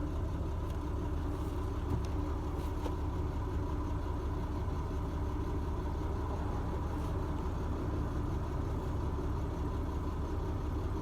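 2013 Chevrolet Tahoe's V8 engine idling steadily, with the fouled cylinder 1 spark plug that caused its misfire freshly replaced.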